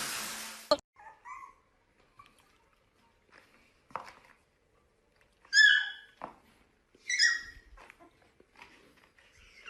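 Puppy giving two short, high yelps that fall in pitch, about a second and a half apart, with faint whimpers and small rustling sounds around them. A steady hiss fades out in the first second.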